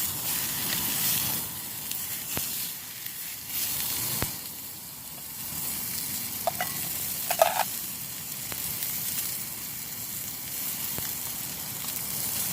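Sirloin steak sizzling as it fries in a pan, unseasoned. There are a couple of short, sharper sounds about six and seven and a half seconds in.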